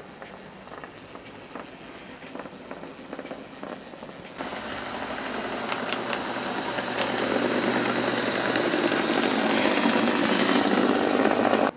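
OO gauge model trains running on the track: faint running and light clicking at first, then, from about four seconds in, a model diesel locomotive's motor and wheels growing steadily louder as it approaches, with frequent clicks, until the sound cuts off abruptly near the end.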